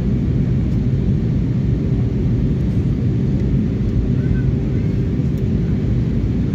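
Airliner cabin noise in flight: a steady, deep rumble of the jet engines and airflow, with a faint steady hum.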